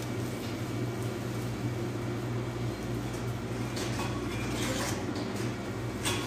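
A steady low hum, with a few light clinks of a metal spoon and tongs against a steel mixing bowl and a muffin tray about four seconds in and near the end, as batter is scooped into cupcake liners.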